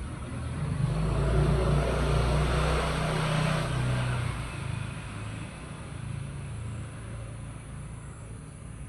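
A motor vehicle's engine passing by: it swells about a second in, stays loud for a few seconds, then fades away.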